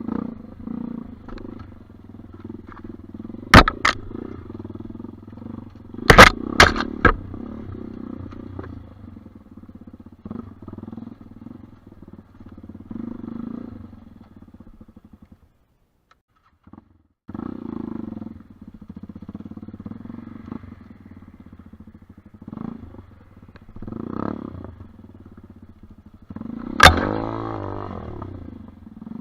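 Dirt bike engine running at low revs over rough trail, with several sharp loud knocks and clatters about 3 and 6 seconds in and again near the end. The sound drops out for about two seconds midway, and the engine revs up near the end.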